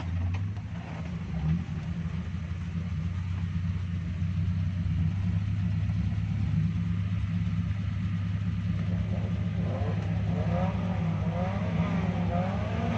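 Suzuki Jimny's engine running steadily at low revs, a constant low drone while the 4x4 crawls off-road. In the last few seconds a wavering, up-and-down higher tone rises over it.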